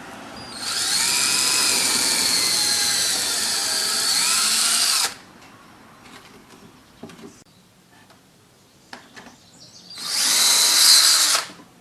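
Power drill running in two bursts, a long one of about four seconds and a shorter one near the end, its motor pitch dipping and rising as it works. Small knocks in between.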